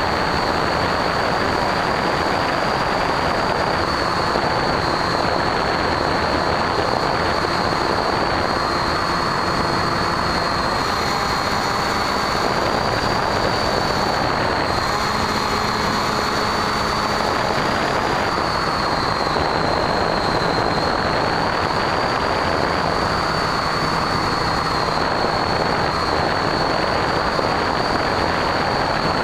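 A Bixler foam model plane's electric pusher motor and propeller whine steadily with a high note that wavers slightly, under constant wind rush on the onboard camera's microphone.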